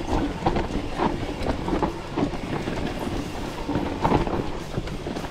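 Mountain bike rolling fast down a rough trail, its chain, frame and tyres rattling and clattering irregularly over rocks and roots, over a continuous low rumble.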